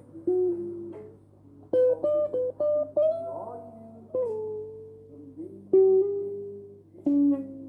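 Electric guitar played clean, picking single notes and short melodic phrases, each note left to ring and fade. A few notes are bent or slid about three seconds in.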